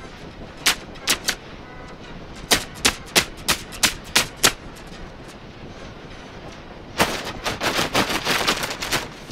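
A series of sharp taps: a few scattered ones, then a quick run of about eight, then a fast, dense clatter in the last couple of seconds.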